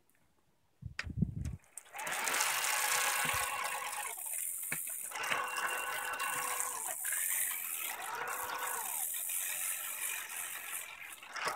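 Bafang BBS02 mid-drive motor whirring as it drives the chain and a Shimano Nexus 8 internal gear hub with the rear wheel spinning free on a stand, after a brief rattle as it starts. The pitch dips and rises again a few times as the speed changes. No odd noise from the drivetrain when run unloaded.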